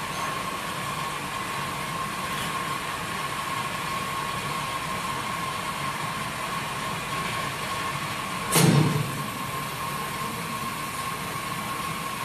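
Keg washing and filling machine running during a test: a steady machine hum with a thin, constant whine, broken by one brief loud burst of noise about eight and a half seconds in.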